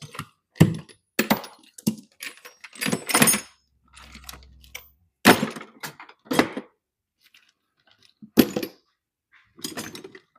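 Metal hand tools and sockets clinking and knocking against each other and against a metal tool cart as they are handled and set down: a dozen or so irregular sharp clinks and knocks.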